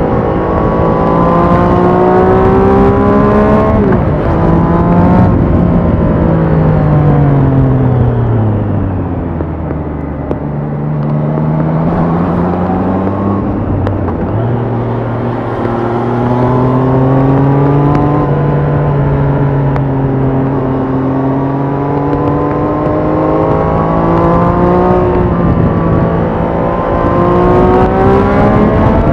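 2021 Triumph Trident 660's 660 cc inline three-cylinder engine running through its stock exhaust while being ridden. The engine note holds steady at first with a brief dip about four seconds in, falls away over several seconds as the bike slows, then picks up again and climbs gradually toward the end.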